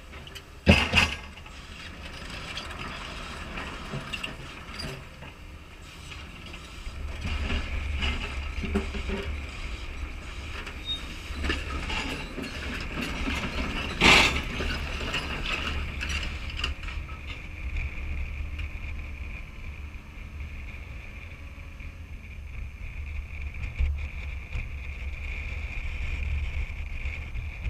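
CAT 320E excavator working: its C6.4 diesel engine and hydraulics run steadily as it swings and moves the bucket, with metallic clanks and two loud knocks, one about a second in and one about halfway through.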